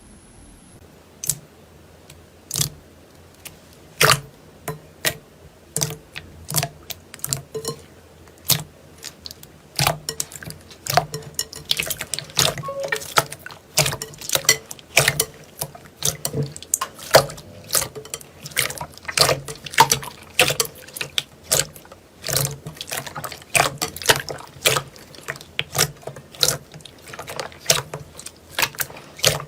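Slime being squeezed and poked by hand, making sharp wet clicks and pops, a few at first and then a quick, irregular stream of them from about ten seconds in.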